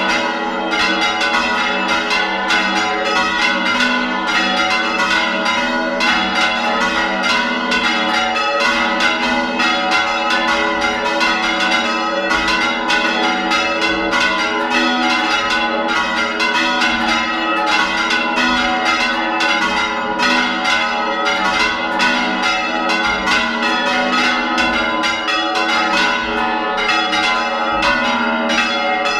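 Several church bells rung by hand in the bell tower, heard close up: swinging bells and struck strokes overlapping in a dense, continuous peal of many strokes a second, with the bells ringing on between strokes.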